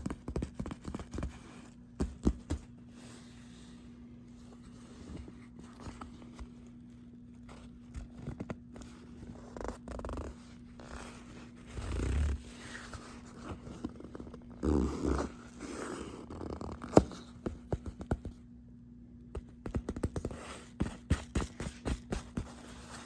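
Leather jacket being handled and flexed by hand: scattered soft clicks, rubs and creaks of old, firm leather, with a few louder handling thumps around the middle, over a faint steady hum.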